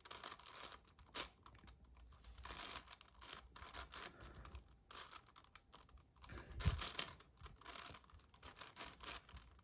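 Magnetic 7x7 Rubik's cube being turned by hand: soft, irregular clicking and rattling of its layers, with a louder flurry of turns about two-thirds of the way through.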